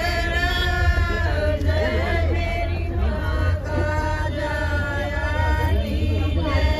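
A song with music: a melody of long, held, wavering sung notes over a steady low hum.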